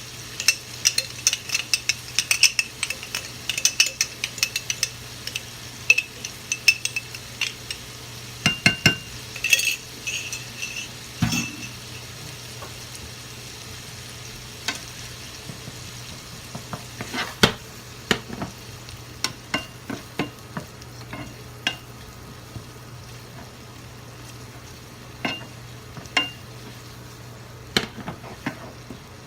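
Chopped onion frying in a pan, sizzling, while a spatula stirs it with quick clinks and scrapes against the pan. The clatter is dense for about the first twelve seconds, then thins to occasional knocks, over a steady low hum.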